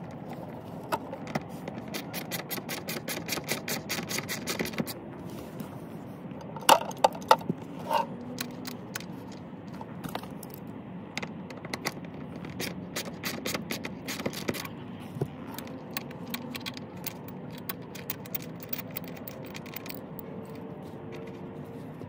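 Socket ratchet clicking fast in short runs as the seat belt's floor anchor bolt is unscrewed. A few louder metal knocks and scattered clicks follow, dying away after about fifteen seconds.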